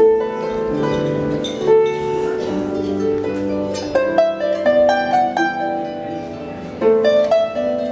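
Solo harp being played: plucked strings ringing and overlapping in a melody, with a quicker run of notes about halfway through.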